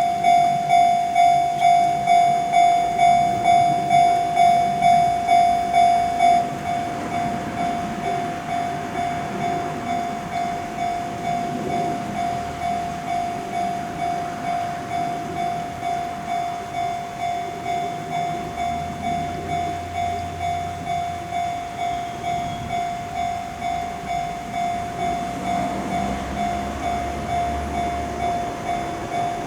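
Japanese level-crossing warning bell ringing its steady "kan-kan" at about two strikes a second. About six seconds in it drops quieter and duller, and a train runs past underneath as a low rumble.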